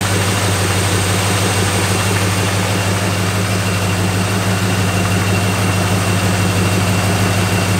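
Chrysler 318 V8 idling steadily.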